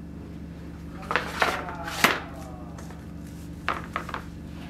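A steel long sword sliding home into its wooden scabbard: a brief scrape and three sharp knocks, the last the loudest, as the crossguard meets the scabbard mouth. Then a few lighter knocks as the sheathed sword is laid down.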